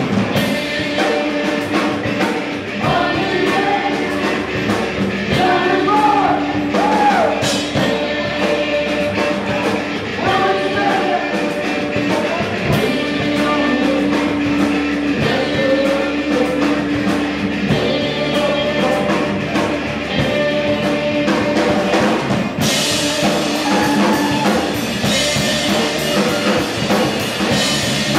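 Live rock band playing loudly: electric guitars, bass guitar and drum kit, with bending lead lines over the chords. About three-quarters of the way through, the cymbals get brighter and the band builds.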